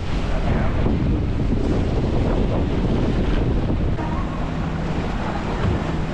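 Wind buffeting the microphone and water rushing past the hull of a boat running at speed, churning up its wake, with a faint engine drone underneath. The sound drops a little about four seconds in.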